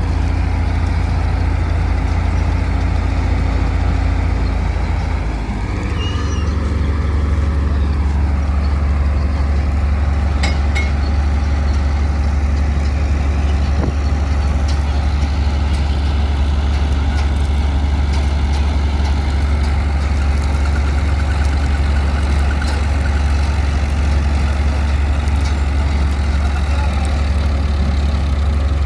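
Combine harvester's heavy diesel engine running steadily at working speed while it unloads grain into a tractor trolley. The engine note shifts and dips briefly about six seconds in, then runs on evenly.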